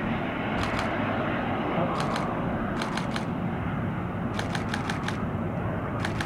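Twin-engine business jet landing, its engines giving a steady rushing noise, with short bursts of rapid clicking about five times over it.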